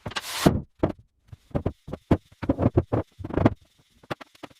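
Quick, irregular knocks and clicks from the newly hung steel door and its hardware being worked, with a short rushing swish just at the start.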